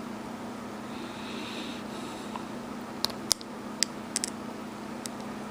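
A handful of sharp little clicks and ticks, about six over two seconds in the second half, from a knife or prying tool working against a smartphone's chassis while peeling off an adhered flex strip, over a steady low hum.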